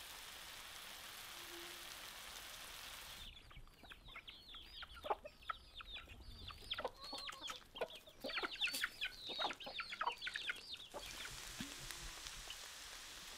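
Mushrooms and onion rings sizzling in butter in a cast-iron skillet. About three seconds in, the sizzling gives way to a flock of hens clucking: many short, falling calls for several seconds. The sizzling returns near the end.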